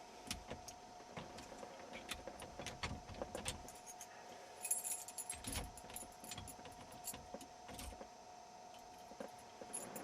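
Club steering-wheel lock being fitted and locked: scattered metallic clicks and clinks, with keys jangling.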